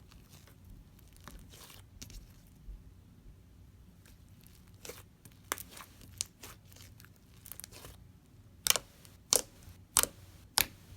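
Thick slime being worked by hand, making sharp crackling pops. The pops are faint and scattered at first, then come as four loud ones about half a second apart near the end.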